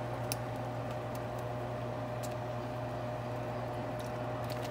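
Steady kitchen hum with a constant mid-pitched whine over a pot of chicken broth at a rolling boil, with a few light clicks as pieces of dumpling dough are dropped in.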